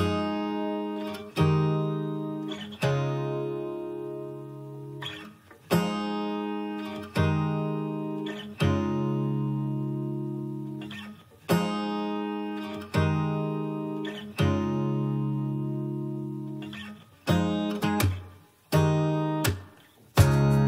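Background music: an acoustic guitar strumming chords, each struck about every one and a half seconds and left to ring out and fade.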